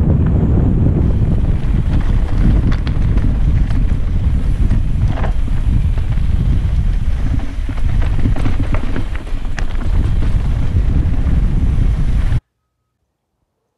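Wind buffeting the microphone of a helmet-mounted camera on a mountain bike descending dirt singletrack, a loud low rumble with scattered clicks and knocks from the ride. It cuts off abruptly to silence near the end.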